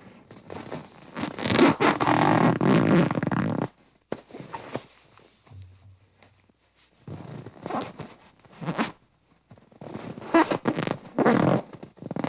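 Rubber balloon letting air out through its neck in sputtering, flapping bursts: one long burst, then two shorter groups of bursts later on.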